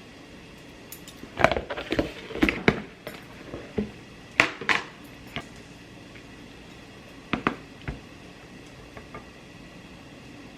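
A series of short, sharp clinks and knocks of hard objects being handled, bunched in the first half with a few more later, over a steady low hiss.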